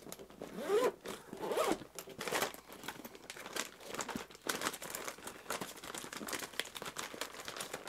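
Zipper on a soft-sided tackle bag being drawn open, then clear plastic soft-bait packs crinkling and rustling as they are handled and pulled about.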